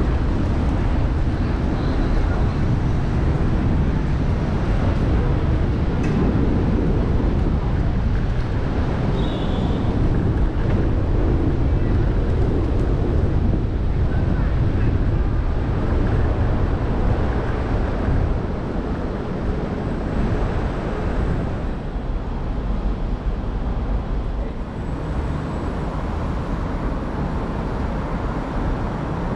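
Steady wind rush on the microphone of a moving camera, with street traffic noise underneath.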